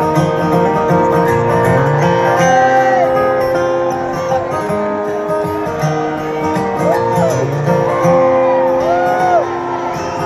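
Live country band playing an instrumental break: acoustic guitar with a lead instrument holding notes and sliding up and down between them several times.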